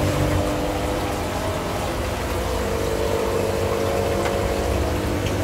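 Aquarium air pumps and filters running with a steady hum, water bubbling in the fish tanks.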